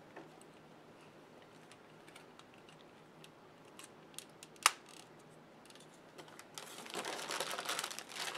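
Scattered light clicks and taps of hard plastic toy parts being handled, with one sharp click a little past halfway. Near the end a steady crinkling of plastic wrapping starts.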